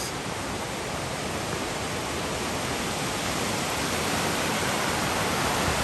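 A river rushing steadily past the campsite, an even wash of water noise that grows slightly louder.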